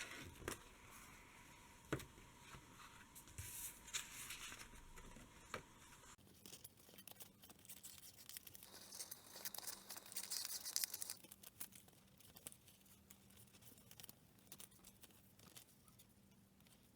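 Faint paper handling: scattered light clicks and rustles of the printed adhesive sticker sheet, with a longer stretch of scraping rustle a little past halfway.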